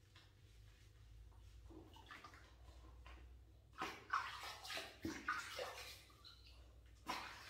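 Water splashing in a plastic baby bathtub as a baby is washed, in a few short splashes from about four seconds in and one more near the end.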